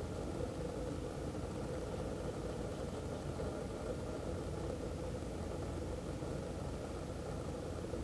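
Steady mechanical hum with a low rumble and a constant pitch, like a motor running.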